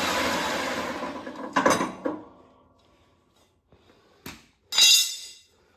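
Metal clattering and scraping of hand tools against a mower blade and its mounting: a long rattling scrape that fades, another short clatter, a single click, then a bright ringing clank of metal near the end.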